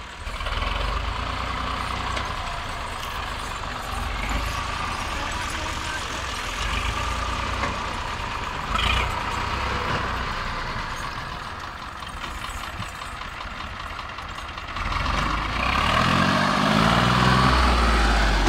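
Dewan tractor's diesel engine running as it hauls a loaded sugarcane trolley: a steady low rumble that grows louder and shifts in pitch near the end as a tractor comes close.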